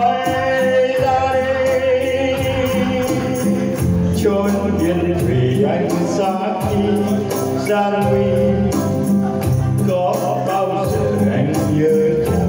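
Live performance of a Vietnamese ballad: a nylon-string classical guitar and a shaken tambourine keeping a steady beat under a male voice singing the melody.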